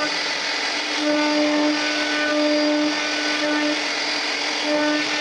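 CNC router spindle cutting a carved design into mahogany wood: a steady whirring cutting noise, with a hum that swells and drops away several times as the bit moves through the cut.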